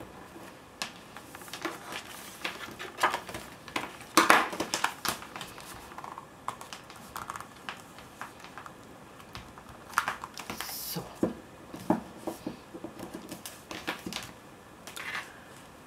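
Paper and cardstock handled by hands: scattered rustles, light taps and slides as the album's pages are pressed down and leafed through. The loudest rustle comes about four seconds in.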